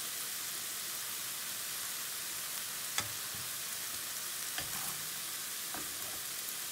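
Chicken pieces sizzling steadily in hot oil in a frying pan, with a few clicks of metal tongs against the pan as the pieces are turned. The sharpest click comes about three seconds in.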